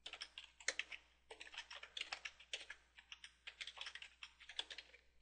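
Typing on a computer keyboard: a quick, uneven run of quiet keystroke clicks with brief pauses between bursts.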